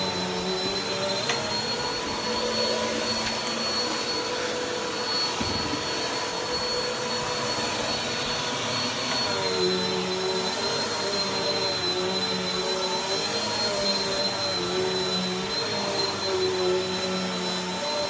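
Bagless upright vacuum cleaner running steadily with a high motor whine, its hose and brush attachment working carpet. The pitch drops a little about halfway through and then wavers.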